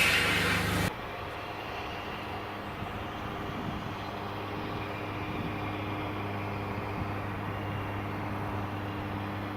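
A loud hiss of steam cuts off abruptly about a second in. It gives way to a steady low hum of a diesel locomotive engine idling.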